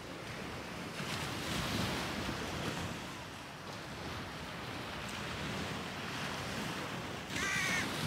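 Sea waves washing onto a sandy shore, the surf swelling about a second in and easing off again; near the end a bird calls once.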